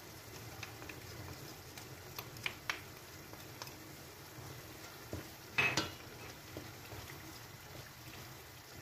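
Zucchini pulp cooking in olive oil in a stainless steel pot, a faint steady sizzle, with a few light spoon clinks and, a little past halfway, a louder scrape as the pot is stirred with a wooden spoon.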